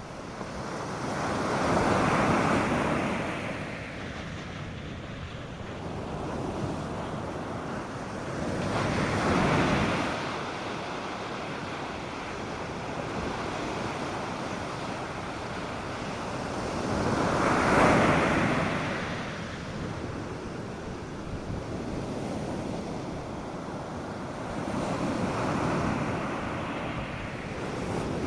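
North Sea surf breaking on a sandy beach: four waves swell and break roughly every eight seconds, with a steady wash of water between them.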